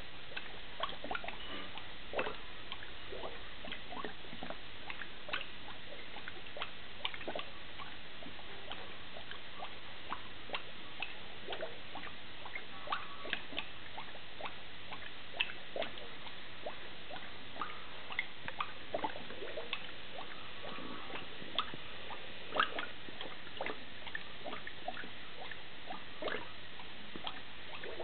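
S-shaped twin-bubble plastic fermentation airlock on a demijohn, bubbling irregularly as fermentation gas pushes through the water in it: scattered small plops, ticks and gurgles, a sign of active fermentation.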